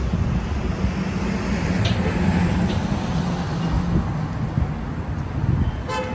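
City street traffic: a steady low engine rumble from vehicles passing close by, with a brief pitched beep just before the end.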